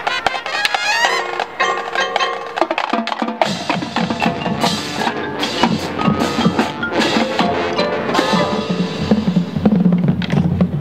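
High school marching band playing its field show. Mallet percussion from the front ensemble plays rising runs, and about three and a half seconds in the rest of the band comes in with a fuller, lower sound.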